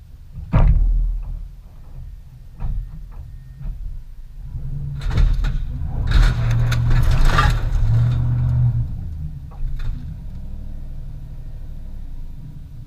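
A vehicle engine revs up loudly for a few seconds, then settles to a steady run. A sharp thump comes about half a second in, and scattered clicks and knocks are heard.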